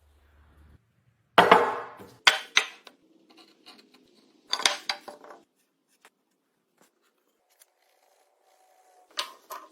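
Sharp knocks and clattering of hard objects striking one another, the loudest about a second and a half in, then a quick pair, a short cluster near the middle and another knock near the end, with faint taps in between.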